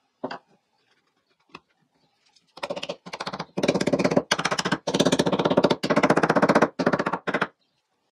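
Soft-faced mallet tapping the dovetail joints of a small wooden box frame home during glue-up: one knock, then, about two and a half seconds in, a rapid run of taps in several bursts with short breaks, stopping suddenly.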